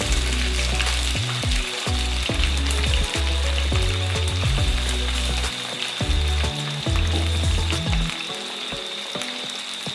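Chicken pieces frying in hot oil in a saucepan: a steady sizzle with fine crackles. Background music with a bass line plays over it and drops out about eight seconds in.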